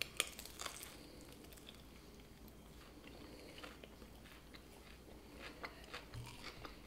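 Two people biting into bagel halves spread with peanut butter and topped with pickle slices, then chewing. A few crisp crunches come in the first second, followed by faint, scattered crunching and chewing.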